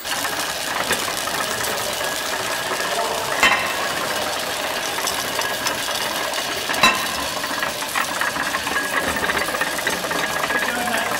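Small steam barring engine running, a steady hiss of steam with a fast metallic clatter and two louder knocks about three and a half seconds apart, as it turns the 1885 Gimson compound beam engine over for starting.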